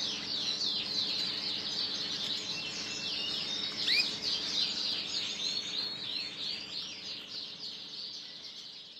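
Rasmi Boland (Persian) canary singing a fast, continuous song of rapid chirps and trills, fading out near the end.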